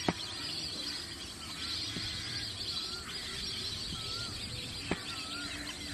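Many birds calling together at a pond: a dense high chatter, with one short wavering call repeated about once a second. A few sharp clicks stand out, the loudest right at the start.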